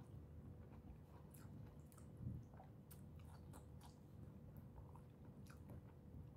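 Faint, close chewing of a mouthful of fresh tomato, with scattered soft wet mouth clicks.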